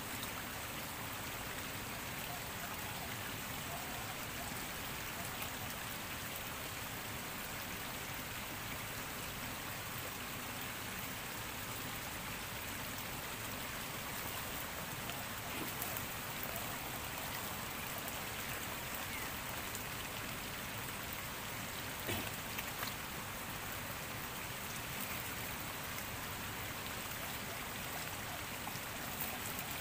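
Shallow stream rushing and splashing around the legs of a person standing in it: a steady watery hiss, with a couple of faint knocks.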